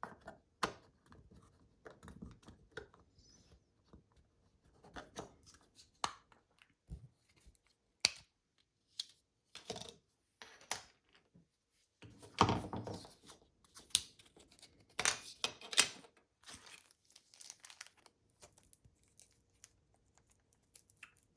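Plastic shell of a car remote key being handled and pried apart: irregular sharp clicks and short scraping, rustling noises from small plastic parts.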